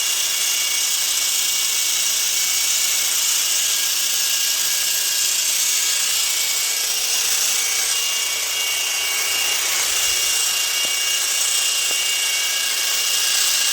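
Parkside 40 V brushless cordless multi-tool with its hedge-trimmer attachment running steadily while trimming a bush: a constant-pitch motor whine over the hiss of the reciprocating blades.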